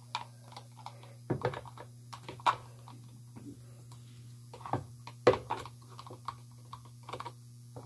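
Plastic fork stirring glue slime in a plastic tub, with irregular clicks and scrapes as it knocks against the tub's sides, the detergent activator being mixed in.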